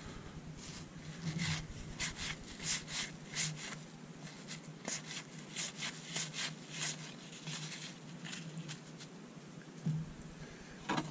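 Cardboard trading cards being thumbed through by hand: a string of short, soft scraping and flicking sounds as cards slide across one another, then a couple of sharper soft knocks near the end as a stack is set down.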